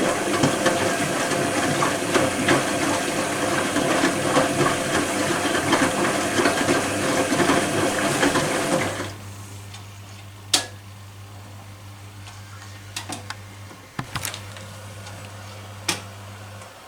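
Privileg Compakt 92 washing machine at work: loud rushing, churning water with rattling for about nine seconds. The water noise then drops away, leaving a steady low electric hum with a few sharp clicks, and the hum cuts off at the very end.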